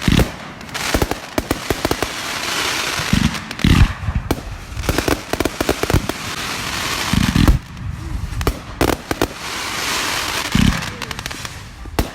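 Fireworks display: a rapid run of sharp bangs and several deep booming shell bursts, with swells of crackling hiss in between.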